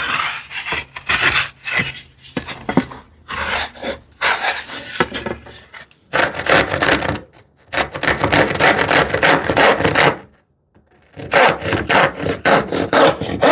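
Hand saw cutting through a wooden board in quick back-and-forth strokes, with a short pause a little past the middle.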